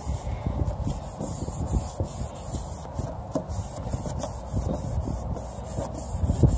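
Prep towelette rubbed by hand across a sanded plastic headlight lens, an uneven scuffing in short strokes, as the lens is cleaned ahead of clear coat.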